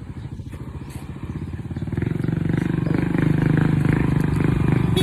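A small engine running with a rapid, even putter, growing louder over the second half.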